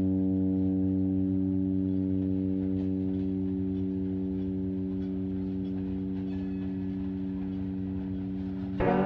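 A held drone note with a stack of overtones, slowly fading, in experimental electronic music. Near the end a new, louder note strikes in, with pitches sliding.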